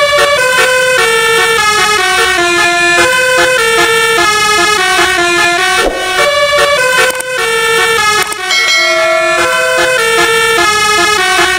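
Indonesian 'telolet' bus horn, a set of musical air-horn trumpets, playing a tune: a run of held notes that change pitch every fraction of a second, with several horns sounding together.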